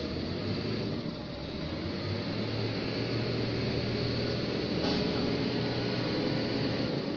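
Forklift engine running steadily as the forklift drives with a load on its forks, a low hum that grows a little stronger about two seconds in, with a light knock about five seconds in.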